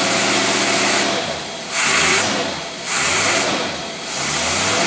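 Engine running on a marine Rochester Quadrajet carburetor under a load test, with a strong hiss over a steady engine note. Three times, about once a second, the sound falls away briefly and then picks back up, the engine note rising as it recovers.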